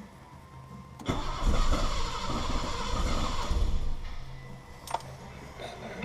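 BMW 7 Series engine cranking on its starter for about three seconds, starting about a second in, then stopping without settling into an idle.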